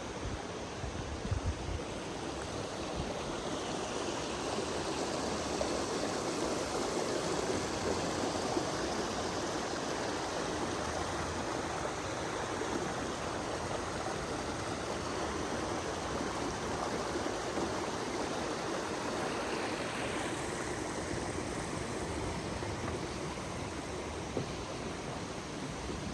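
Steady rush of water from a waterfall and its stream, with a few low bumps of wind on the microphone in the first second or two.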